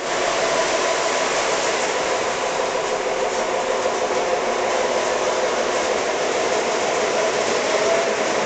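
Electric model train running along its track: a steady whir of motor and wheels on the rails, with a faint hum.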